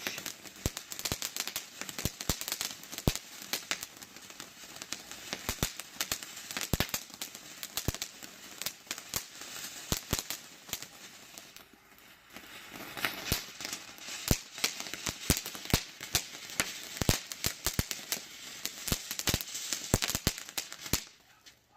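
Mortar Fire fountain firework burning: a hiss of sparks with dense, sharp crackles. It eases off briefly about halfway through, picks up again, then dies out just before the end.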